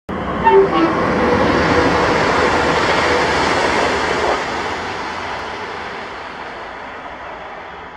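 Passenger multiple-unit train passing at speed: a steady rush of wheels on rail that fades away over the second half.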